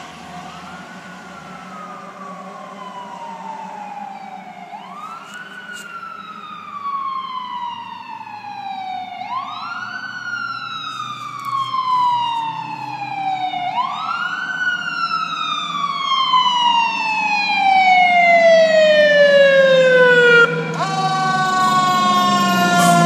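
Fire truck siren wailing, each cycle rising quickly and then falling slowly, repeating about every four to five seconds and growing louder as the truck approaches, over a low engine rumble. Near the end the wail falls away and steady siren tones take over.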